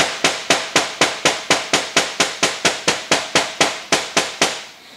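Ball-peen hammer tapping rapidly and evenly, about four blows a second, flattening a Teflon-impregnated rope seal; the tapping stops about four and a half seconds in.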